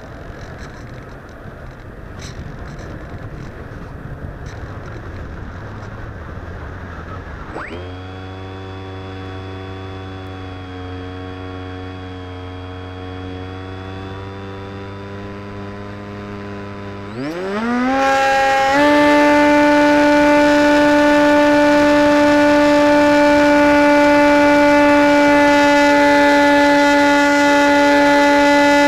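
Radio-controlled model plane's motor and propeller heard from a camera on board: rushing air at first, then the motor starts suddenly about 8 s in with a steady whine, and about 17 s in is throttled up to a much higher, louder pitch that it holds.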